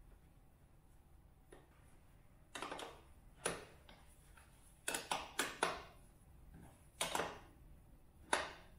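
A 17 mm spanner clicking and scraping on a motorcycle rear indicator's mounting nut as it is tightened: about eight short, sharp metallic clicks in irregular groups, the loudest near the end.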